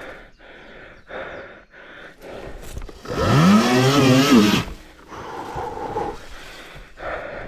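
A man breathing hard in rhythm, then a loud strained groan of effort about three seconds in that rises sharply and wavers for about a second and a half.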